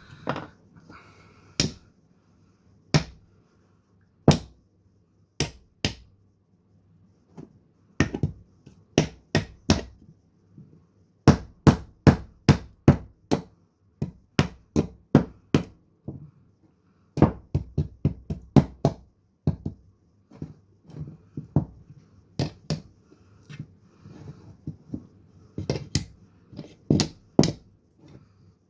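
A knife being struck down into a log to split off kindling: dozens of sharp wooden knocks, coming in quick runs of several strikes with short pauses between.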